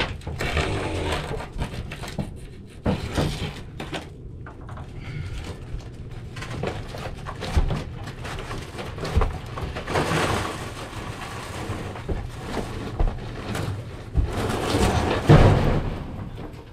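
Roof demolition by hand: irregular knocks, clatter and scraping of boards and debris being worked loose. There are louder rushes of noise about ten seconds in and again near the end.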